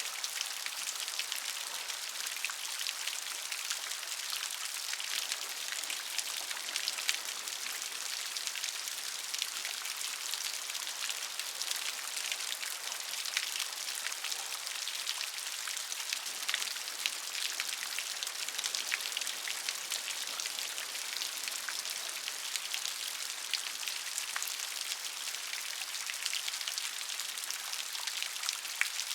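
Steady rain falling, a dense hiss with many small droplet ticks on a hard surface.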